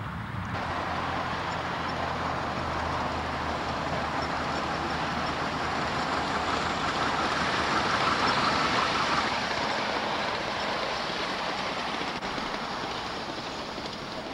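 Miniature-railway steam locomotive, a model of a BR Standard Class 4, running past on its track. A steady rushing sound grows to its loudest about eight seconds in, then fades as the engine moves away.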